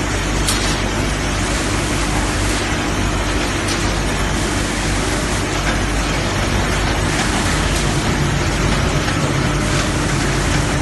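Sawdust-processing machine of a wood pellet line running steadily while sawdust is shovelled into its feed hopper: a loud, even mechanical noise with a low hum and a steady tone underneath.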